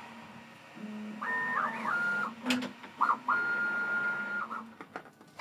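Stepper motors of a Prusa XL 3D printer whining as the toolhead travels. The whine holds one pitch, glides briefly to a lower one and holds again, with a lower hum beneath. Two sharp clicks come about two and a half and three seconds in.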